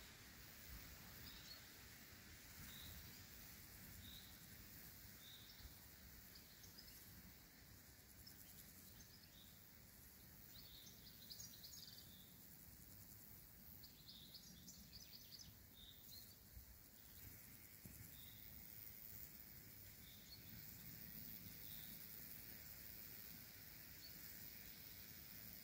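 Near silence of open countryside, with faint high chirps repeating about once a second and a short busier flurry of chirps about halfway through.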